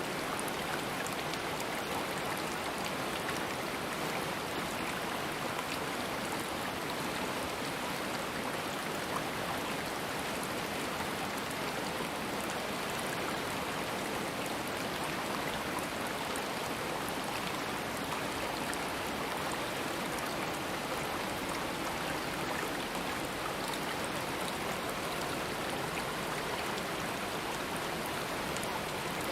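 Running stream water, a steady, unbroken rush.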